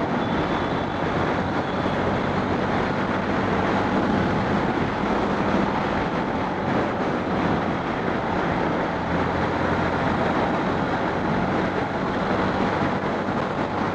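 Steady rush of wind and road noise over a motorcycle-mounted camera, with the Honda X-Blade's single-cylinder engine droning underneath as it cruises at an even speed.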